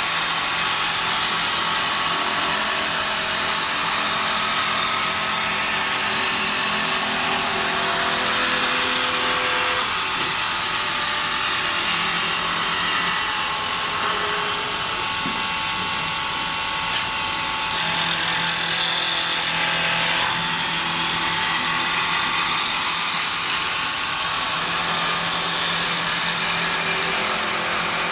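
Automatic wood lathe running and cutting wood: a steady motor hum under a loud hiss of the cutters shaving the wood. The hiss drops away for about three seconds just past the middle, then comes back.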